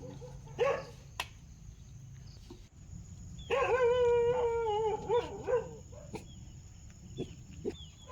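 Dog vocalising: a short bark about half a second in, then a long wavering cry lasting about two seconds, starting about three and a half seconds in, and a couple of short yips near the end.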